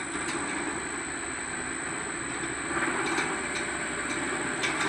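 Heavy welding rotator running with a steady mechanical rumble and a few faint clicks.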